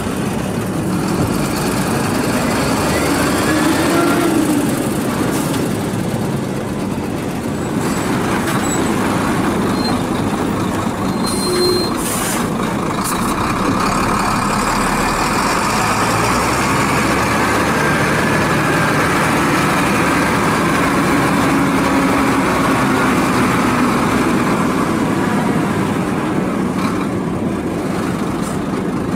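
Sinotruk Howo three-axle dump trucks, their heavy diesel engines running steadily as the trucks move slowly across a gravel yard.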